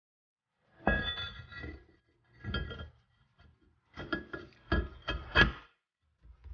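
Metal parts and tools clinking and knocking together, each strike followed by a short metallic ring. There is a cluster about a second in, another near two and a half seconds, and a quick run of strikes from about four to five and a half seconds.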